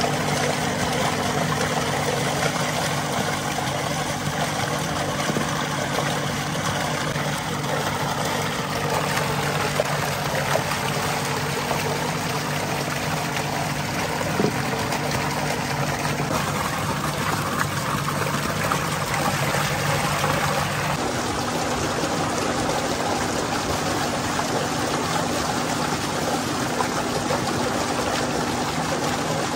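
Tube-well water gushing steadily from an outlet pipe into a concrete tank, splashing as chestnuts are rinsed in a clay bowl under the stream. A steady low machine hum runs underneath.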